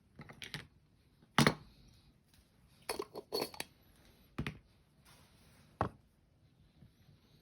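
Metal parts of hand coffee grinders clinking and knocking as they are handled and set down: a scattering of sharp clinks, the loudest about a second and a half in, a quick cluster around three seconds and a last knock near six seconds.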